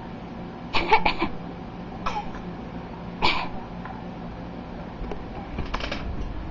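A string of short, deliberate coughs that the title calls fake: three quick coughs about a second in, single coughs at about two and three seconds, and another quick cluster near the end.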